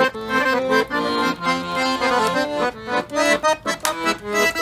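Piano accordion playing a tune, melody and chords in short changing notes.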